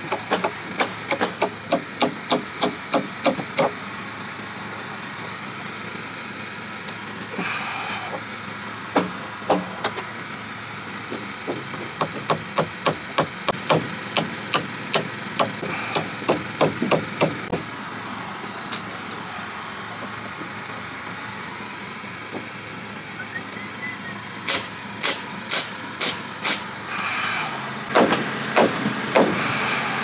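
Framing hammer driving nails by hand into wood framing: runs of quick sharp strikes, about three to four a second, with pauses between nails, over a steady background rumble.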